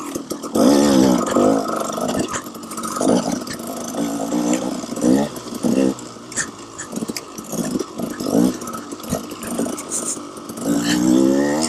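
KTM 300 XC-W two-stroke single-cylinder dirt-bike engine revving up and down repeatedly under throttle as it is ridden through tight trail.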